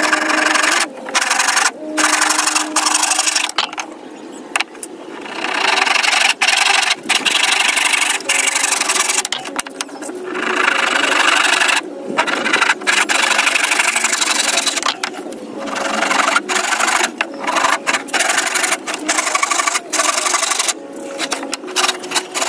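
Hand saw cutting a piece of scrap 2x2 wood, in runs of quick back-and-forth strokes broken by short pauses.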